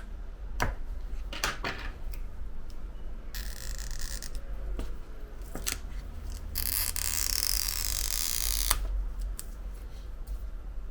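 Stretch-release adhesive pull tab being drawn out from under an iPhone battery: a few light clicks, then a short stretch of high rasping noise about three and a half seconds in and a longer, louder one of about two seconds near seven seconds in, over a steady low hum.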